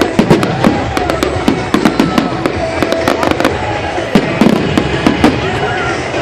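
Fireworks going off in rapid, irregular succession: many sharp cracks and bangs, over music and voices.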